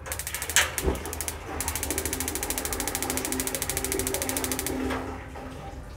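LPG gas geyser's electronic igniter sparking at the burner electrodes in a rapid, even train of clicks lasting about three seconds, with a low hum under it and a sharp click about half a second in. This is the fault where the flame lights only for a few seconds and goes out while the igniter keeps sparking.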